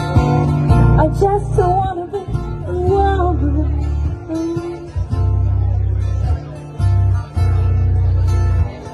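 Live acoustic band: an acoustic guitar is strummed over an electric bass guitar playing strong low notes. From about a second in to about halfway, a woman sings a phrase.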